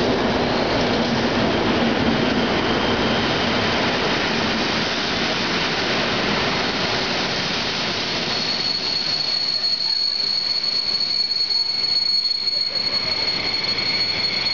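Passenger coaches of a departing international train rolling past along the platform, a loud steady rumble of wheels on rail. About halfway through the rumble thins as the train draws away, and a high steady wheel squeal sets in and holds.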